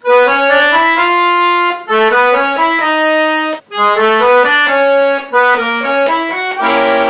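Accordion keyboard playing a stepwise melodic phrase of sustained, reedy notes in three short groups, landing on a full held chord near the end.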